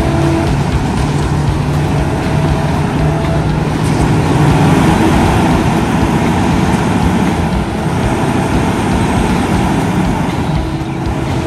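Heavy diesel truck engines of concrete mixer trucks running steadily at the job site: a continuous low drone with a dense mechanical rumble.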